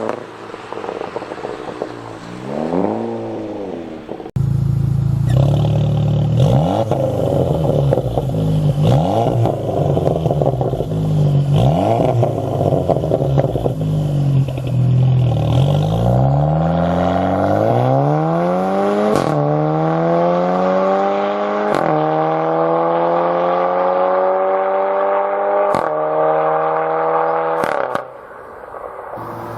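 Seat Leon Cupra ST's turbocharged four-cylinder engine through an aftermarket exhaust, blipped in a few short revs, then from about four seconds in running louder and deeper with repeated revs. In the second half it accelerates through several gears: the pitch climbs and drops back at each upshift, with a sharp crack at some of the shifts.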